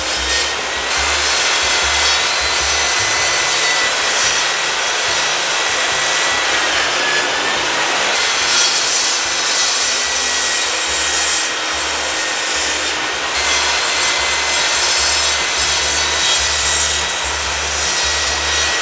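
A portable table saw running and cutting along a long pine 2x4 as it is fed through, a steady, continuous sawing noise.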